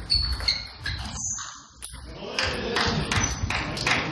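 Table tennis rally in a sports hall: the celluloid ball clicks sharply off the bats and table, with a few short high squeaks in the first second. Fabric rustles close to the microphone through the second half.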